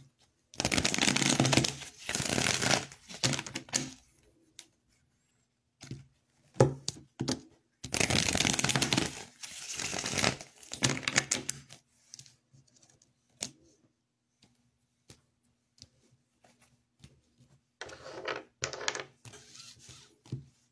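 A deck of tarot cards being shuffled in two bursts of a few seconds each, with scattered light clicks and taps in between and afterwards as cards are handled and laid down.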